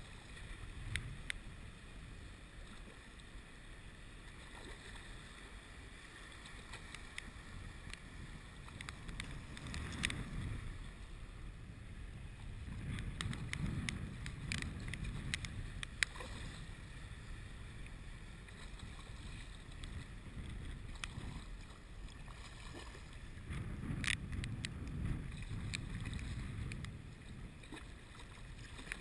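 Wind buffeting the microphone over choppy water, a steady low rumble that swells in several gusts. Scattered sharp ticks and knocks come through it, the loudest about ten, sixteen and twenty-four seconds in.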